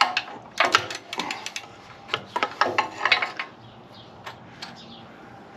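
Mini ratchet on a long extension clicking in quick runs as a nut on a small-engine generator's carburetor is loosened, then a few scattered clicks.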